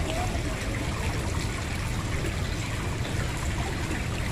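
Steady trickle and splash of water flowing into a koi pond.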